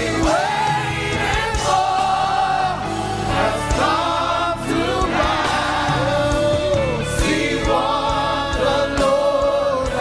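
Live gospel praise music: voices singing a melody together over a band with a steady drum beat.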